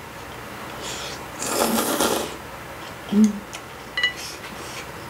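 A mouthful of noodles slurped in one noisy draw of about a second. A short hum from the eater follows, then a light clink with a brief ring as the chopsticks tap the ceramic bowl near the end.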